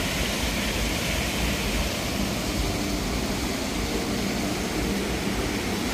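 Steady rush of river water pouring over a small stone weir.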